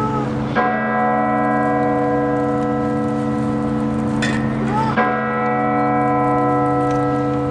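A large bell tolling: two strokes about four and a half seconds apart, each ringing on over a long low hum.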